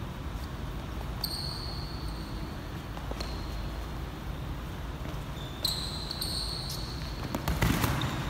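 Sneakers squeaking on a gym court floor in a few short, high squeals while two boxers move about sparring, then a quick flurry of padded boxing-glove hits near the end, the loudest part, over a steady low room hum.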